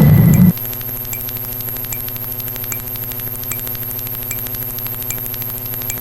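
Synthetic sound effects: a short loud burst of noise, then a steady buzzing drone with rapid, evenly spaced clicking and faint high blips a little under once a second.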